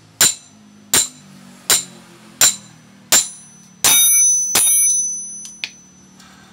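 Hammer blows on an old main shaft used as a drift to knock the new main shaft down into its seat in an Ape auto gearbox casing: about seven sharp metal-on-metal strikes, roughly one every 0.7 s. The two strikes near the middle ring on for about a second, and a lighter tap comes near the end.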